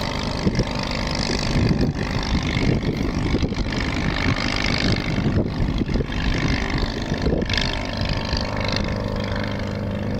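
Half-VW engine of a Legal Eagle ultralight droning as the aircraft flies past, with heavy wind buffeting on the microphone. The engine's steady tone stands out more clearly near the end.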